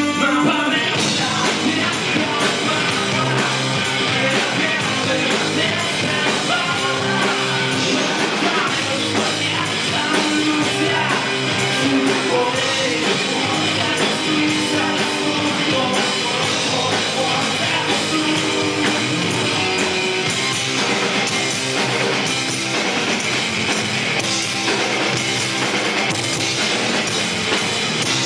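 Rock band playing a song with electric guitar and singing, the sound full and continuous without a break.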